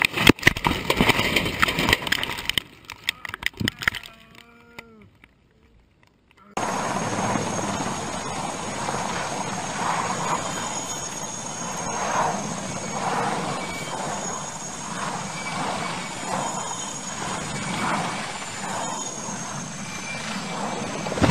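A burst of loud rattling and knocks trails off into a near-silent gap. About six and a half seconds in, a large helicopter starts up on the track, its engines and rotors running steadily: a rushing noise with a high, thin turbine whine over it.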